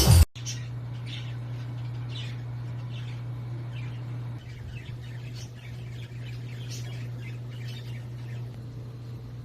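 Small birds chirping, short calls coming irregularly throughout, over a steady low hum.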